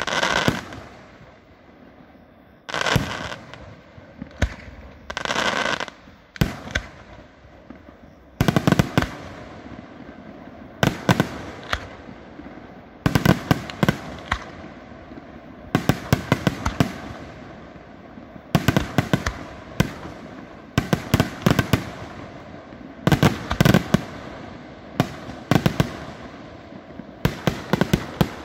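Aerial firework shells bursting: a few drawn-out bursts about a second long in the first six seconds, then clusters of sharp bangs repeating every two to three seconds.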